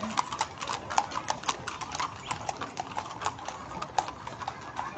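Hooves of several horses clip-clopping at a walk on a paved street, many hoofbeats overlapping in an irregular patter.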